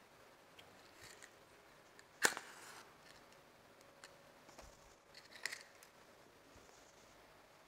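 A wooden match struck once, a sharp scrape followed by a brief fizz as it flares, about two seconds in. A few light clicks and taps about three seconds later.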